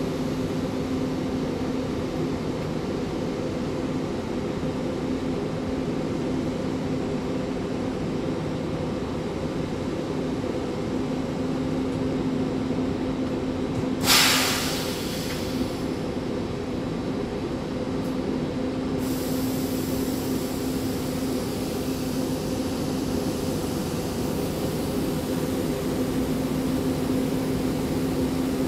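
Steady mechanical drone of trains in a railway station, with a few held low tones. About halfway through comes a sudden loud hiss that fades within a second or two.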